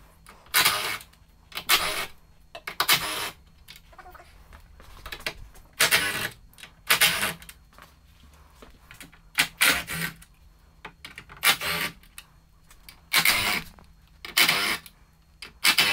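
Socket ratchet with a 13 mm socket clicking in short bursts as bolts are wound out, about a dozen bursts spaced irregularly a second or two apart.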